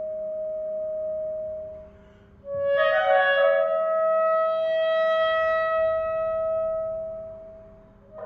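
Solo clarinet playing: a held note fades out, and after a brief pause a loud quick flurry of notes leads into a long sustained note that dies away near the end.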